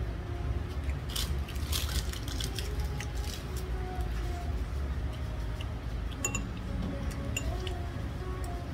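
Eating utensils clicking and clinking against ceramic dishes: a cluster of quick clicks about a second in, then a few short ringing clinks around six seconds in, over a steady low hum.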